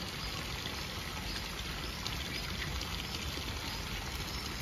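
A thin stream of water from a stone fountain spout pouring steadily into a pool.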